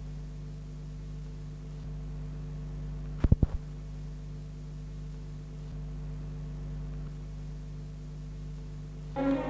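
Steady electrical hum made of several fixed low tones, with a quick cluster of four clicks about three seconds in. Music comes back in just before the end.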